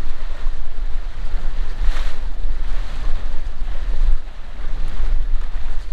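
Wind buffeting the microphone over the rush of sea water around a moving boat, with a louder rush about two seconds in.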